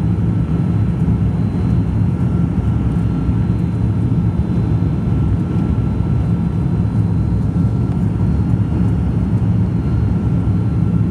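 Airliner landing: a steady, even rumble of engines and airflow with a faint steady whine above it, unchanging throughout.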